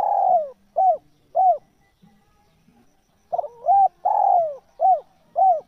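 Spotted dove (tekukur) cooing its song: a long drawn-out coo followed by two short coos, then after a pause of about two seconds the whole phrase again, a few quick short coos, one long coo and two short ones.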